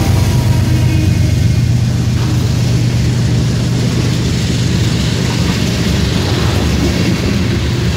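Diesel freight locomotives passing with their engines running, a loud, steady low drone.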